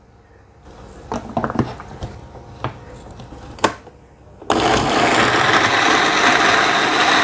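Turbo countertop blender switched on about halfway through and running steadily and loudly, grinding shallots, garlic, roasted candlenuts, ginger, turmeric and red chillies with a little water into a spice paste. Before it starts, a few light clicks and knocks as the jar is seated on the base.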